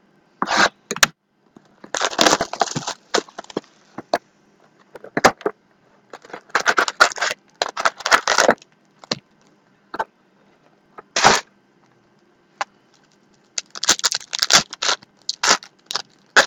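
Basketball trading card packs being torn open and their foil wrappers crinkled, with cards sliding against each other. The noise comes in short spells, about eight times, with quiet gaps between.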